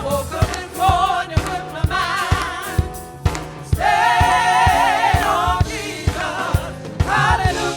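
Gospel choir singing in harmony over a band with a steady drum beat; the voices hold a long sustained chord with vibrato about four seconds in.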